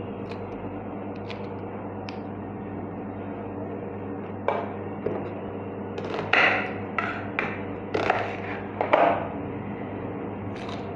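Kitchen knife cutting red onion into cubes on a wooden chopping board: a quick run of about nine sharp knocks of the blade on the board, starting about halfway through, over a steady low hum.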